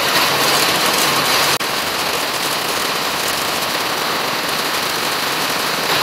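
Heavy rain falling, a steady dense hiss.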